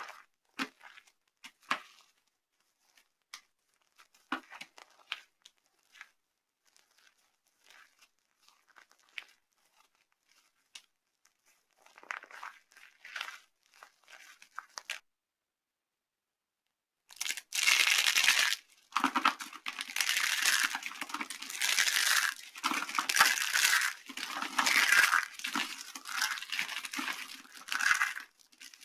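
Dry soap being crushed: sparse, faint crackles and small snaps for about the first half, then, after a brief silence, a dense run of loud crunching and crumbling.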